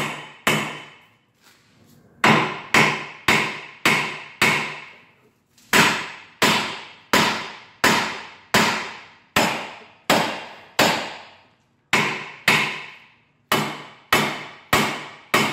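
Hammer blows on the steel steering knuckle and ball joint stud ends of a 2002 Ford Excursion's front axle, knocking the knuckle loose. The blows come about two a second in runs with short pauses, and each one rings out.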